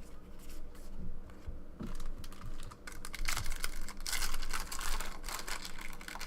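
Trading cards being handled and flipped through: scattered soft clicks and rustling, busiest a little past the middle.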